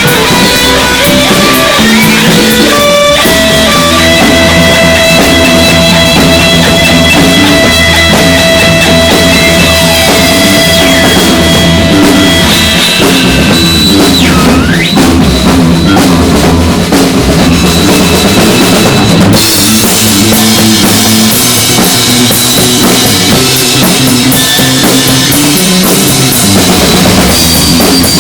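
Live improvised rock jam: drum kit and bass keep a steady beat under guitar and electronic noise. High whining tones are held over it, and a pitch sweep dips and climbs back about halfway through.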